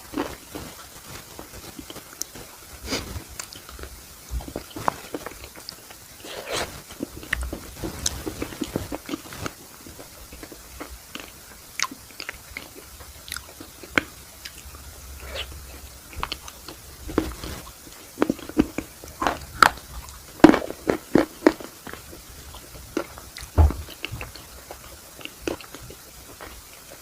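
Close-miked eating of an ice cream cone: irregular bites and chewing, with many sharp crunches and crackles of the crisp cone, loudest in a quick cluster a little past two-thirds of the way through.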